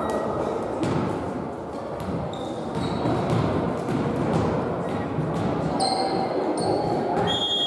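Volleyball hall between rallies: players' voices and calls echoing in the large hall, a ball bouncing on the wooden court, and a few short high-pitched squeaks near the end.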